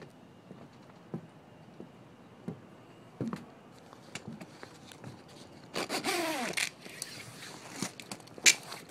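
Footsteps and light knocks on a wooden dock, then a loud rasping scrape with a falling squeak about six seconds in as someone climbs aboard the boat, and a sharp snap near the end.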